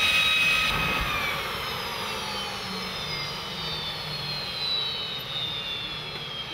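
Aero L-39 Albatros jet's turbofan engine whining over a steady rush of air, the whine sliding slowly down in pitch.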